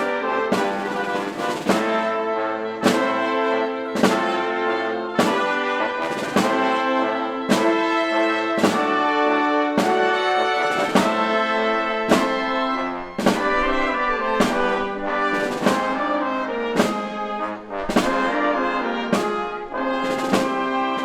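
Symphony orchestra playing, the brass section leading with held chords over steady percussion strokes about once a second.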